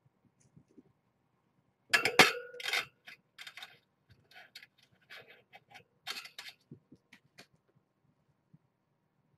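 Clinking and rattling of a small cat toy being handled: a loud cluster of clicks with a short ring about two seconds in, then scattered lighter clicks until near the end.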